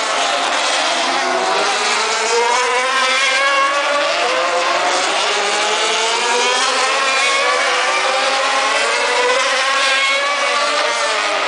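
Several Super TC 2000 touring race cars passing at high revs. Their overlapping engine notes rise and fall in pitch as they go by.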